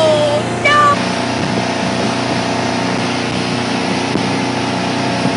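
Motorboat engine running steadily at towing speed, with the rush of wind and water over it. Near the start a high-pitched call trails off, and a second short one follows about a second in.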